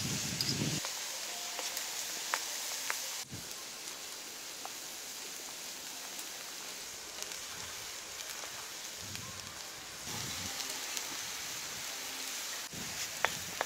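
Butter and meat fat sizzling in a hot wide pan of browned ground beef: a steady frying hiss with scattered small pops and crackles.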